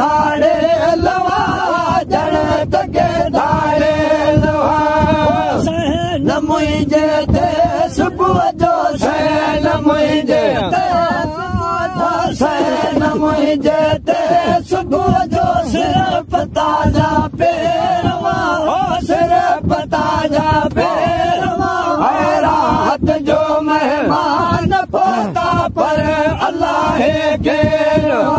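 Male voices chanting a devotional maulud song in chorus, largely unaccompanied, over a steady held drone note.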